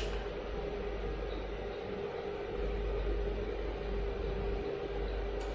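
Steady low background hum with a faint held tone, and a short click at the start and another near the end.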